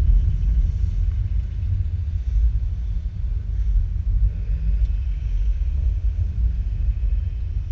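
Steady low rumble of a 2014 Mustang GT's 5.0-litre V8 at low revs, heard from inside the cabin, as the car rolls slowly.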